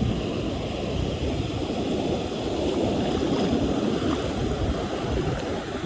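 Ocean surf washing onto a sandy beach, a steady, heavy low rush of waves.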